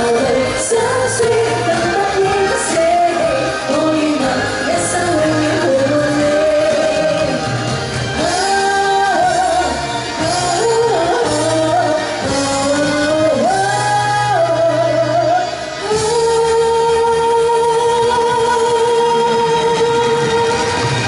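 A woman singing a Cantopop song live into a microphone over a backing track; for the last five seconds or so she holds one long note with vibrato.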